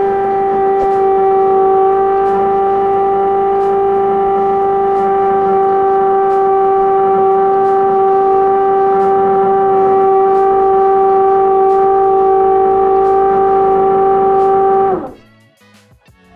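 Loud train horn held on one steady note for about fifteen seconds, cutting off about a second before the end.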